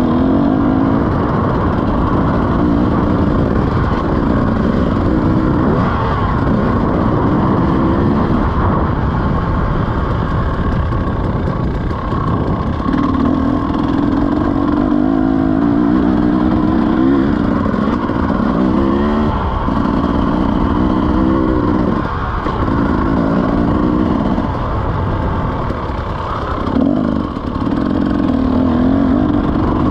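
KTM 300 two-stroke dirt bike engine being ridden hard, its note rising and dropping again and again as the throttle is opened and closed.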